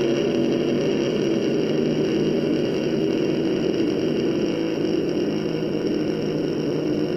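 Ujjayi pranayama breath: one long, slow inhalation drawn through a narrowed throat, making a steady, loud throat sound.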